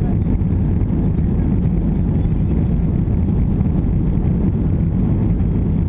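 Steady low rumble of an Airbus A320-200 heard from inside the passenger cabin, its engines running as it rolls along the runway for takeoff.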